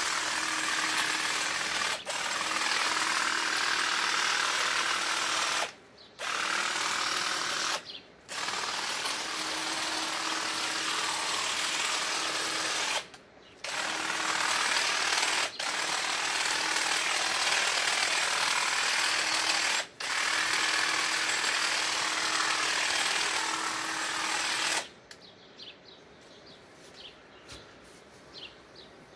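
Einhell GE-CH 1846 Li 18-volt cordless hedge trimmer running and cutting through a conifer hedge, its motor holding one steady pitch. It breaks off briefly about six times as the trigger is let go, then stops for good near the end.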